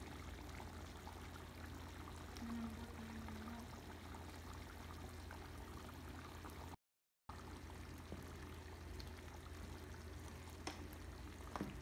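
Chicken caldereta stew simmering in a pot: faint bubbling and popping over a steady low hum. The sound drops out for a moment about seven seconds in.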